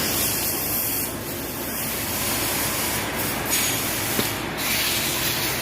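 Steady rushing, hissing noise, its high hiss swelling and fading a few times.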